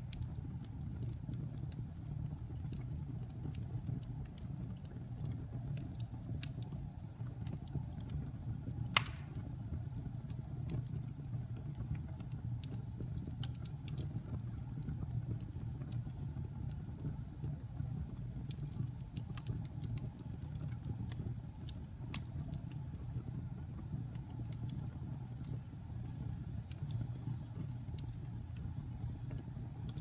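Wood logs burning in a fireplace, crackling with scattered small snaps and one sharp pop about nine seconds in, over a steady low rumble.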